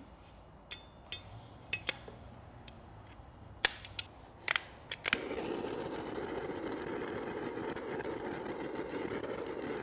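A series of sharp, separate clicks for about five seconds. Then a handheld torch flame starts a steady hiss about five seconds in, warming the paint over a dent before it is pushed out.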